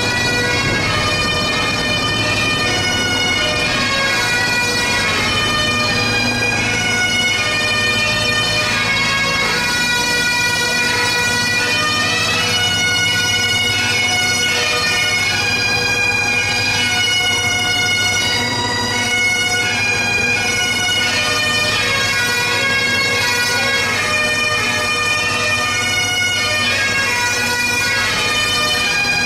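A band of Great Highland bagpipes playing a tune together, the melody moving over steady, unbroken drones.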